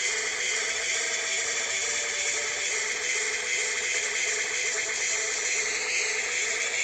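Meme soundboard app clips playing from a phone: a loud, dense, noisy jumble of music and steady tones with no speech.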